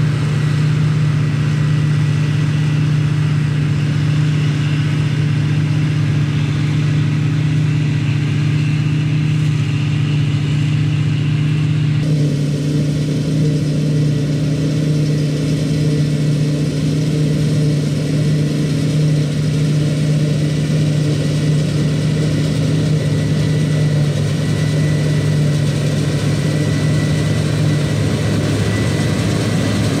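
New Holland CX8080 combine harvester running steadily while cutting barley: a steady low drone from the engine and threshing machinery, with a thin high whine on top. The sound shifts abruptly about twelve seconds in.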